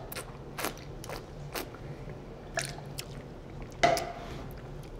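Close-up mouth sounds of a man tasting wine with a mouthful of food: a run of short, wet clicks and lip smacks as the wine is worked around the mouth. A louder one comes just before four seconds in.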